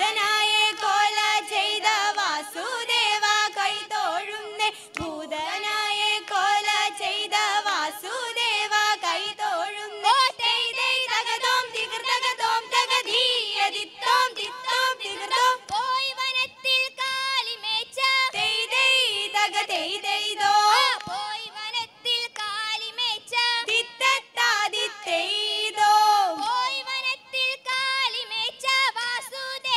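A group of women singing a Malayalam vanchippattu (Kerala boat song) together into stage microphones, with no instrument clearly heard.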